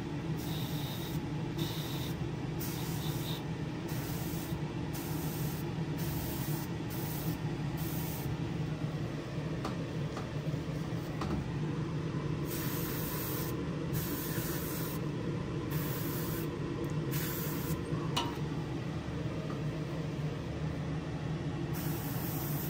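Airbrush spraying paint in repeated short bursts of hiss, the trigger pressed and released over and over, over the steady hum of a spray booth's exhaust fan.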